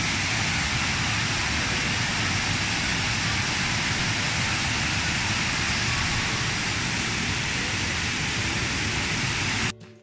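Steady rush of water pouring over a series of shallow tiered cascades. It drops out abruptly for a moment just before the end.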